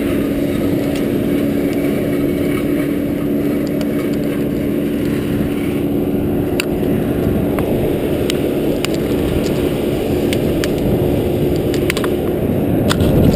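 An engine running steadily at a constant speed, with scattered sharp clicks over it.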